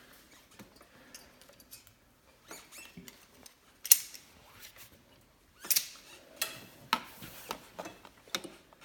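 Vice grips (locking pliers) clinking and clicking against metal while being clamped on to bend over a metal tab, in scattered sharp clicks. The loudest comes about four seconds in, and a cluster follows between about six and eight seconds.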